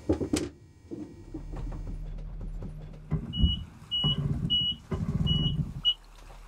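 A metal tool knocks once on the boat's engine at the start. About three seconds in, the engine's starter cranks in three bursts, each under a second, while a short high warning beep sounds five times about 0.6 s apart. The engine does not catch, and the noise drops to a low hum.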